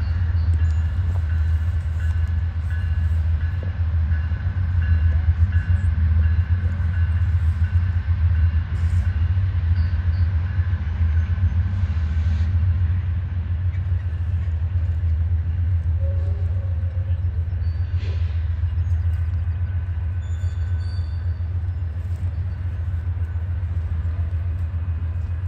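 Norfolk Southern track geometry train, a diesel locomotive hauling inspection cars, running away from the listener with a steady low rumble that eases slightly as it recedes.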